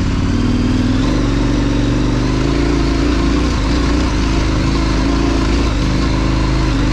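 KTM 1090 Adventure's V-twin engine running steadily while riding a rocky off-road trail, with little change in pitch.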